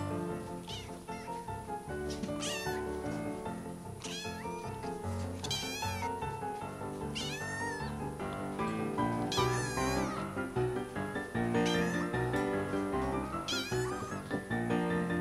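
A kitten meowing again and again, short high-pitched wavering cries every second or two, over background music with a steady beat.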